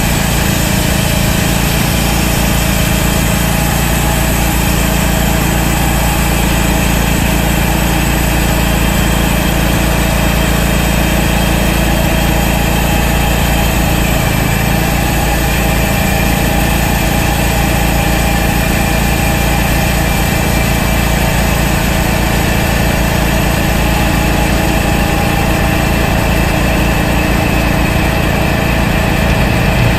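Portable band sawmill running steadily, its small gas engine under load as the band blade saws through an oak log.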